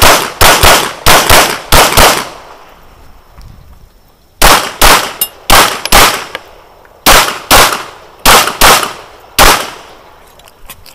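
Glock 34 9mm pistol firing, very loud shots in three fast strings: one right at the start, another about four and a half seconds in, and a slower one about seven seconds in. There are short pauses between the strings.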